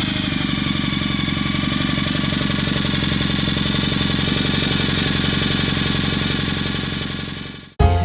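Kawasaki W800's air-cooled parallel-twin engine idling steadily, fading out near the end.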